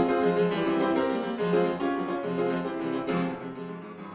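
Background music played on a keyboard instrument, with struck notes, fading out near the end.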